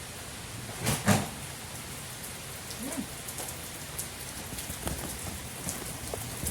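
Heavy rain pouring down, a steady hiss with many small drop ticks. A brief louder sound cuts through about a second in.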